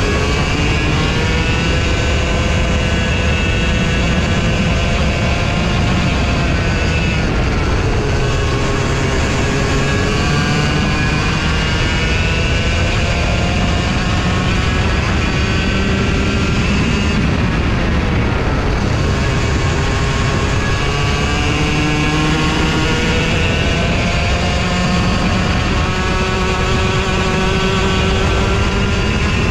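Racing kart engine revving up and dropping back again and again as the kart accelerates out of corners and slows into the next, heard from onboard over a steady low rumble.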